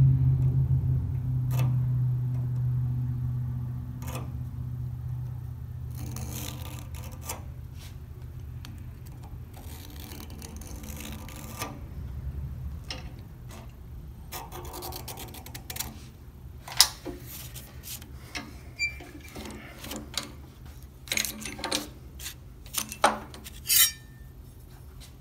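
A hand scriber scratching along a steel plate in three separate strokes, marking the cut line around a template. Then a series of sharp metallic clicks and clanks as the hold-down clamps on the steel welding table are released and the template is lifted off.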